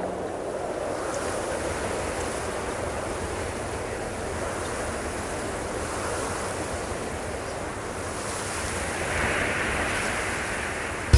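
Steady rushing noise of a large stadium audience, swelling a little about nine seconds in.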